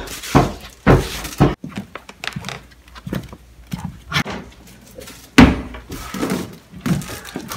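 Footsteps of someone in sneakers walking on a wooden floor: uneven thumps and scuffs, with a few heavy knocks in the first second and a half and another loud one about five seconds in.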